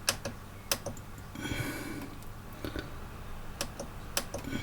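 A few sharp, isolated clicks spread across a few seconds, with a brief soft rustle of handling noise about one and a half seconds in.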